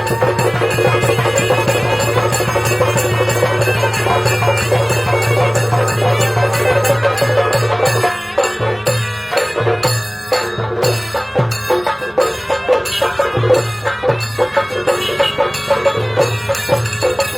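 Music with a steady beat of percussion over a low held tone; from about eight seconds in the beat breaks into short regular pulses.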